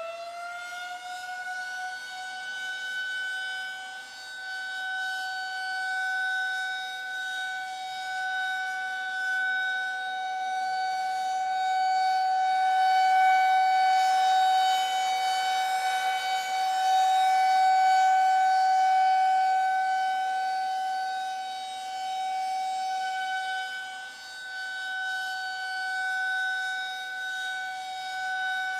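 Air-raid warning siren that finishes winding up to full pitch about a second in, then holds one steady, loud tone whose volume slowly swells and falls. It is the alert signal for the population to take cover immediately.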